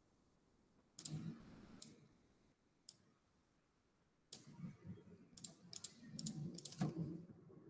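Computer mouse clicks and keyboard keystrokes: a few scattered single clicks, then a quicker run of clicks in the second half.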